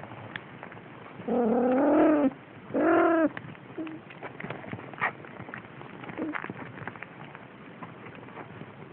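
Siamese cat meowing twice, a long meow and then a shorter one, about a second in, over light rustling and patting of kittens wrestling on bedding.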